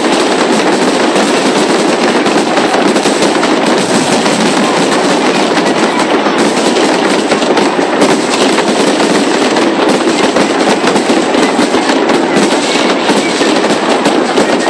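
Aerial fireworks display: a dense, continuous barrage of many small bursts and crackles running together, steady in loudness with no clear gaps.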